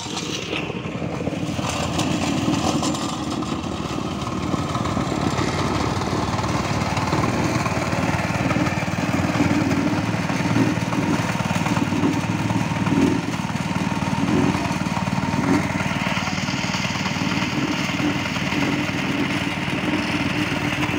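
Petrol-engined vibratory plate compactor running steadily, its small engine and plate rattling hard as it tamps loose sand. The rattle grows harsher about three quarters of the way through.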